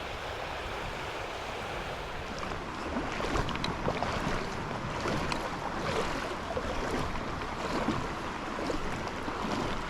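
Steady rushing of flowing creek water, with faint scattered ticks and light splashes from about two and a half seconds in.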